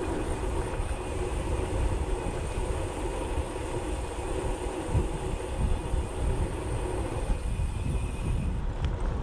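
Wind buffeting the microphone during a bicycle ride in a strong crosswind, with steady road noise and a faint hum that fades out near the end.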